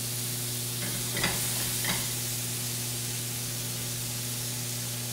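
Cherry tomatoes blistering in butter in a hot frying pan: a steady sizzle, with two light clinks about one and two seconds in.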